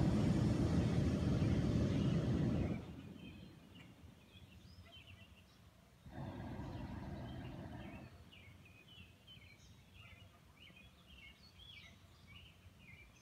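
A hot air balloon's propane burner fires in two blasts: a loud rush of nearly three seconds at the start, then a weaker one of about two seconds midway. Small birds chirp throughout.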